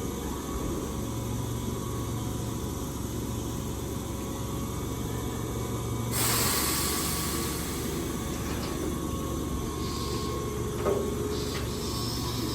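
Keihan 8000 series electric train standing at a platform, its equipment giving a steady low hum. About six seconds in comes a sudden loud release of compressed air that hisses and fades over a couple of seconds, followed later by a few short knocks.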